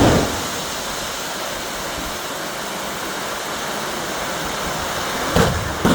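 Fireworks display: a loud bang right at the start, then a steady rushing hiss, and another sharp bang about five and a half seconds in.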